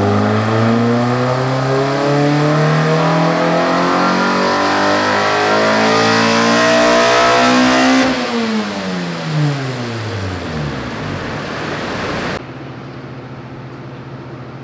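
Honda K24 four-cylinder engine making a full-throttle dyno pull with its intake cam set at 30 degrees. The pitch climbs steadily for about eight seconds to around 7,400 rpm, then falls away as the engine comes off throttle and winds down. Near the end it gives way to a quieter steady hum.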